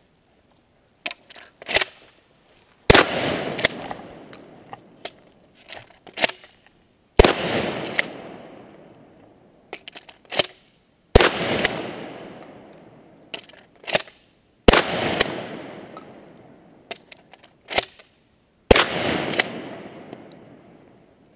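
Remington 870 12-gauge pump-action shotgun fired five times, about four seconds apart, each shot trailing off in a long echo. Between shots there are short mechanical clacks of the pump being racked.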